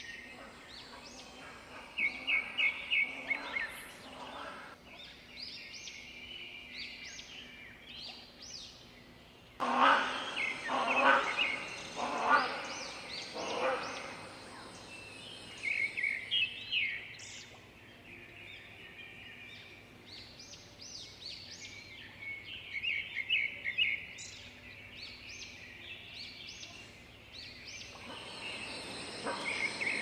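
Bird calls, most likely the great hornbill: a run of loud, harsh notes about ten seconds in, and several short bursts of rapid high chirping, over a quiet steady background.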